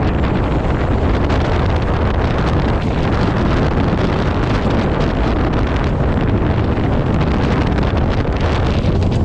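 Strong wind blowing across the microphone, a loud, steady, deep rush of noise with no let-up.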